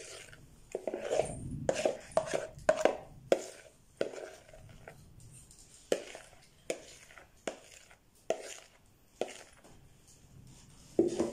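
A spoon scraping whipped coffee paste out of a plastic mixing bowl, knocking against the bowl and a cup: a quick run of taps and scrapes in the first few seconds, then single taps about once a second.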